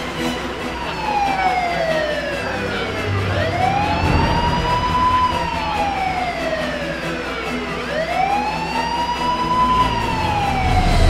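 A wailing siren. Its pitch rises quickly and then falls slowly, in cycles of about four and a half seconds.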